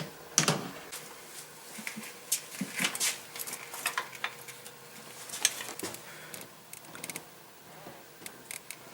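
Scattered light clicks and scrapes of a pry tool and metal parts as fuel injectors are pried loose from an LT1 V8's intake and lifted out with the fuel rail, the sharpest about half a second in and again about five and a half seconds in.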